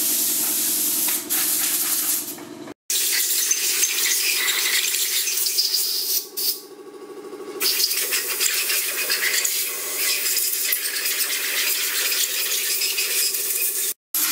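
Hand-held high-pressure spray wand blasting a cylinder head: a steady, loud hiss over the even hum of a running motor, easing off for about a second midway. The sound cuts out abruptly to silence almost three seconds in and again near the end.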